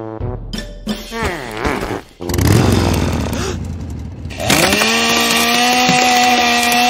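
Maruyama two-stroke chainsaw revving up and down. From about four and a half seconds in it is held at a steady high pitch as its bar cuts through a wall.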